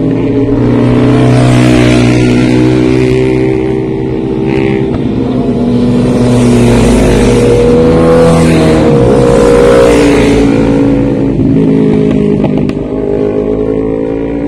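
Motorcycles riding hard through a bend one after another, their loud engine notes holding and shifting in pitch. The loudest pass comes about two-thirds of the way in, with the pitch dropping as a bike goes by.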